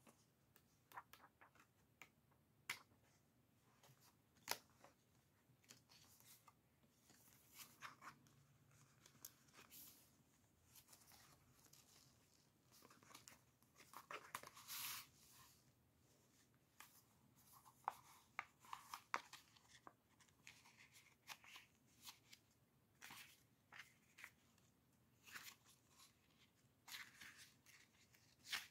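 Paper and card pages of a handmade junk journal being turned and handled: soft rustles and small taps and flicks, with a longer, louder rustle about halfway through.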